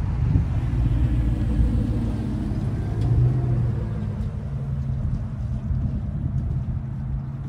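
Pickup truck driving across the railroad crossing and away, a steady low engine and tyre rumble that swells as it passes close about three seconds in.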